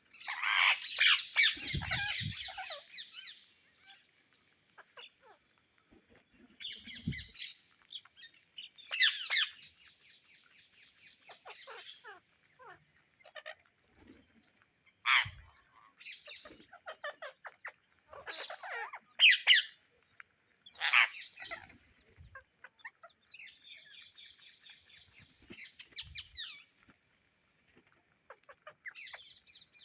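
Indian ringneck parakeets calling in bursts of rapid chattering and sharp squawks, with short pauses between, the loudest squawks about 15 and 19 seconds in. A few faint low thumps sound among the calls.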